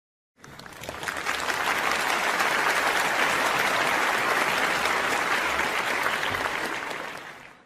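Audience applause, many hands clapping densely together: it fades in about half a second in, holds steady, then tapers off and stops just before the end.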